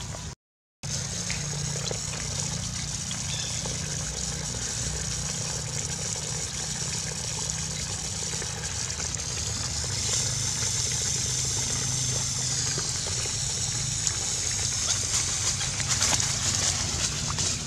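Water running steadily from an open outdoor PVC standpipe tap and splashing onto the ground, with the sound cutting out for about half a second just after the start.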